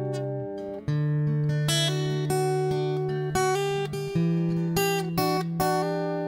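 Background music on acoustic guitar: plucked notes and chords, a new one sounding every second or so.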